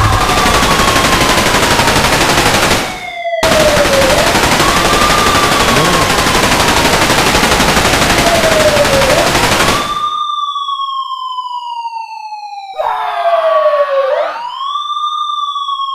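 Siren wailing, its pitch rising quickly and then falling slowly about every five seconds. For the first ten seconds it sits under a loud, dense rush of noise that breaks off briefly about three seconds in and stops about ten seconds in, with a short noisy burst near the end.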